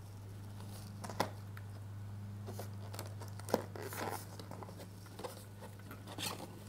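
Cardboard handling: a small white cardboard box being slid out of its packing and its end flap worked open, with scraping and rustling and a few sharp taps, the clearest about a second in and again a couple of seconds later. A steady low hum runs underneath.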